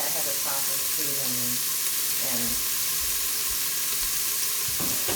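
Steady sizzling hiss of food frying, with faint voices in the background.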